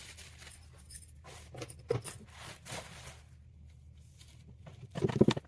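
Handling sounds while unboxing: scattered light clicks, rustling and scraping as packaging and small parts are moved, with a louder cluster of knocks near the end.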